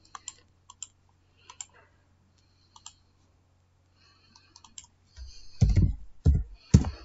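Typing on a computer keyboard: a few scattered key clicks, then from about five seconds in a quicker run of louder keystrokes with dull thumps.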